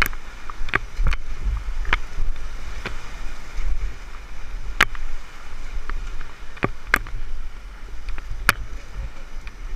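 Class 5 whitewater rushing around a raft, with a heavy low rumble of water and wind on the microphone. Sharp knocks or splashes come through it about once a second.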